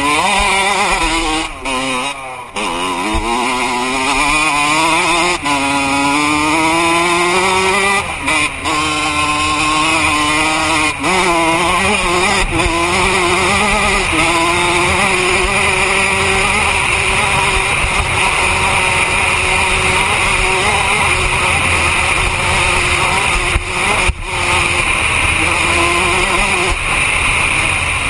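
Dirt bike engine running under way, its pitch climbing and falling as the throttle is opened and eased off, with a few brief drops where the throttle is cut.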